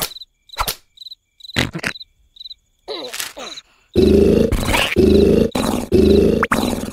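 Crickets chirping in a quiet night scene, with a few small clicks and a short falling squeak. About four seconds in, the sleeping cartoon larva starts snoring loudly again: a rapid run of harsh, grunting snores.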